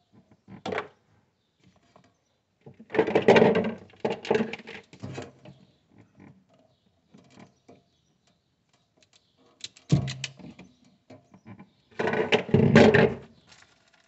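Hands working pliers on the wiring of a refrigerator's temperature sensor: scattered clicks, snaps and rustling in bursts, about three seconds in and again near the end.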